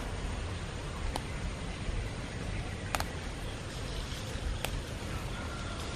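Curry leaf sprigs being picked by hand: three sharp snaps of stems breaking off amid leaf rustling, over a steady low background rumble.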